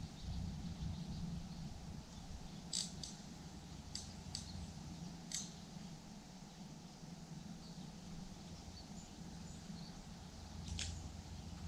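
Quiet river ambience: a steady low rush of moving water around a wading angler, with a few sharp ticks and faint bird chirps.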